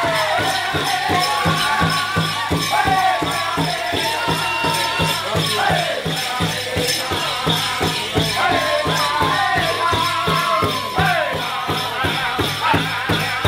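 Powwow drum group singing over a big drum: an even, steady drumbeat under high voices in falling, wavering phrases.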